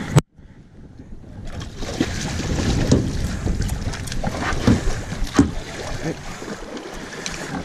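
Wind rushing over the microphone above sea and boat noise. A sharp knock comes just after the start and is followed by about a second of hush, then the noise returns with several short knocks or splashes.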